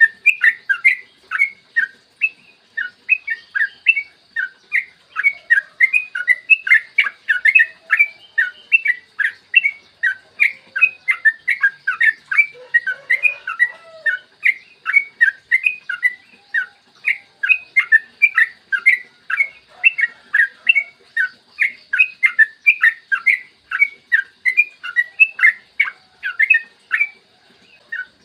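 Yellow-vented bulbul (trucukan) singing a long, unbroken run of rapid, sharp chattering notes, about three to four a second. This is the long 'ropel' song that bird keepers use to prompt captive bulbuls to sing.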